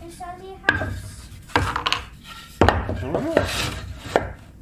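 Four sharp knocks of hard objects striking, spaced about a second apart, with short voice-like pitched sounds in between.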